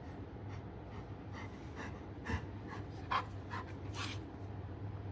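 A Labrador making short, breathy dog sounds, about seven in all, over a steady low hum.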